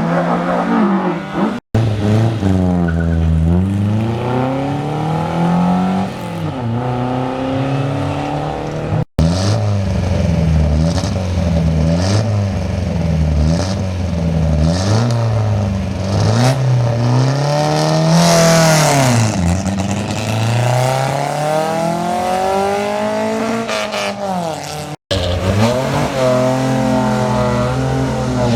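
Hill climb race car engines accelerating hard, each rev climbing then dropping sharply at quick gear changes, as cars pass one after another. Near the middle a brief hiss rises over the engine, possibly tyre noise.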